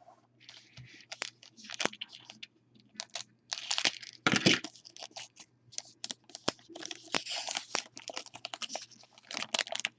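Trading card pack wrapper being torn open and crinkled by hand, heard as an irregular run of crackling rustles with a few sharp clicks.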